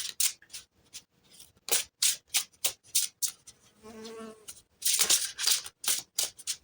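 Tarot cards being handled: a run of quick, dry rubbing and flicking strokes, about three a second, uneven in timing.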